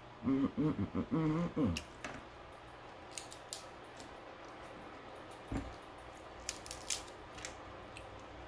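A brief wordless hum from the voice, then sharp clicks and cracks of cooked crab shell being broken and picked apart by hand.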